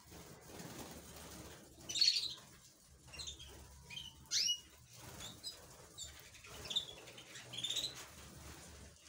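A flock of canaries fluttering and flapping their wings as they move about, with short high chirps and calls about every second.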